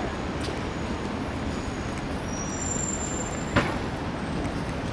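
Steady city street traffic noise, with a single sharp knock about three and a half seconds in.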